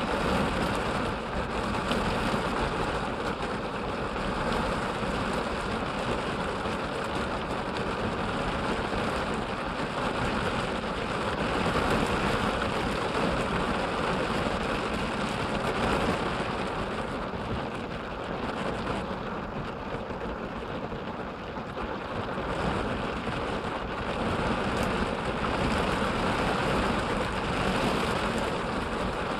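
Heavy thunderstorm rain drumming steadily on the roof and windshield of a parked vehicle, heard from inside the cabin. It eases slightly past the middle, then picks up again.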